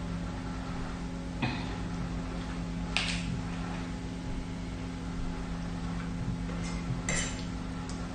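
Metal spoon and fork clinking against a stainless steel pot three times, over a steady low hum.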